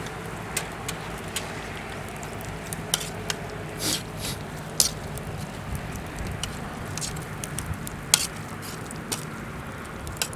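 Wood fire crackling, with irregular sharp pops scattered through, over a low steady hum.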